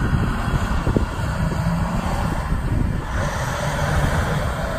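Volvo A40E articulated dump truck driving across a field, its diesel engine running with a steady low rumble, with some wind on the microphone.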